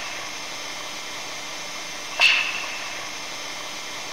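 Field recording of an aurora borealis 'clap', a sound researchers attribute to the northern lights: steady hiss with one sharp clap about two seconds in that dies away within a fraction of a second.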